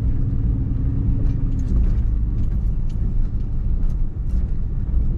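Car driving: a steady low rumble of engine and road noise, with a faint steady hum that fades out about halfway through.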